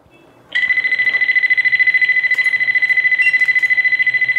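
iTag Bluetooth key-finder's buzzer sounding its alert: one continuous high-pitched electronic beep with a fast flutter, starting about half a second in.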